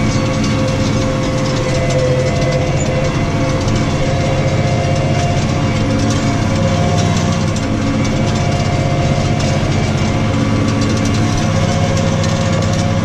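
New Holland T6.155 tractor's diesel engine running steadily under load while pulling a plough, with a constant rumble and rattle. The ground is tougher going than usual, so the tractor is working hard.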